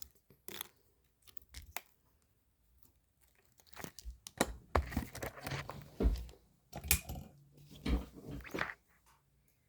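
Close handling noises: rustling, crinkling and tearing-like scrapes with scattered small clicks, sparse at first and busier in the second half.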